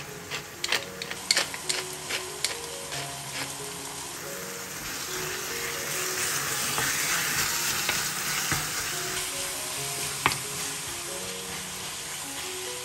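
A wooden pepper mill grinding over the pan, a quick run of sharp clicks for the first few seconds. Then minced meat, bacon and tomato sauce sizzling in a steel frying pan as a wooden spoon stirs it, the sizzle swelling in the middle, with a single sharp knock near the end.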